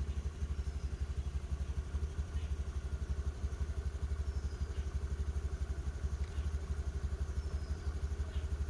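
Motorcycle engine idling steadily, an even, fast low putter.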